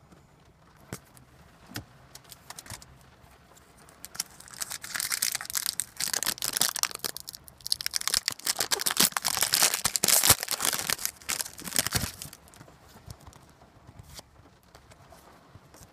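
A foil trading-card pack wrapper being torn open and crinkled: a dense crackling rustle from about four seconds in until about twelve seconds, with a few light clicks before it.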